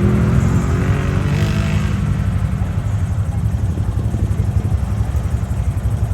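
ATV engine running steadily with a heavy low rumble, its pitch easing down slightly in the first second.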